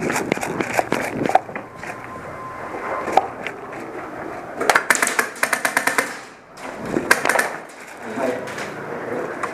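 Airsoft guns firing in an indoor arena: scattered sharp clicks and knocks, then two rapid full-auto bursts, about five and seven seconds in.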